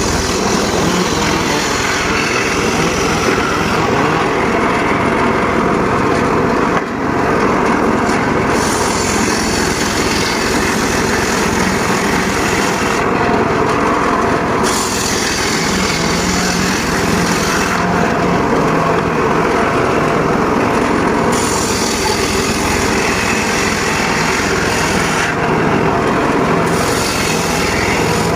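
Homemade circular saw bench running steadily while its blade cuts teak wood. A higher hiss rises over the machine drone in stretches of a few seconds each as the blade bites into the wood, then drops away between cuts.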